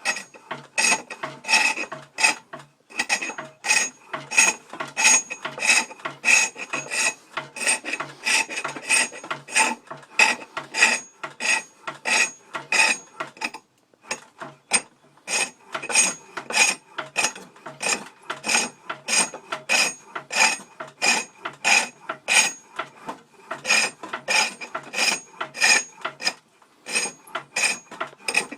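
A turning tool scraping and cutting a hickory blank on a foot-powered spring pole lathe, in an even rhythm of about two to three strokes a second as the work spins back and forth. The cutting stops briefly about halfway through and again near the end.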